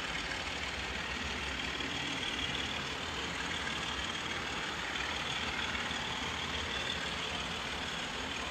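OO gauge model diesel locomotive running steadily along the track with its coaches in tow: a steady, even running rumble.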